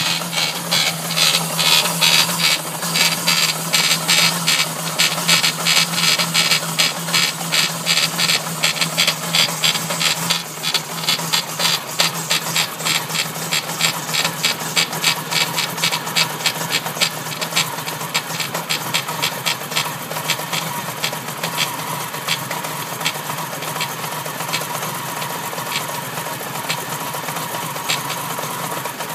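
Renault Clio RS2's 2.0-litre 16-valve engine running at a steady speed with a rhythmic ticking knock, about three clicks a second, loudest in the first ten seconds and weaker after. It is the odd engine noise that appeared after the car was pushed hard on a newly fitted timing kit and water pump.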